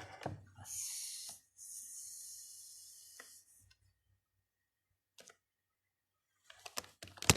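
Handling noise: two stretches of high rustling hiss, the second about two seconds long, then a cluster of sharp clicks and knocks near the end.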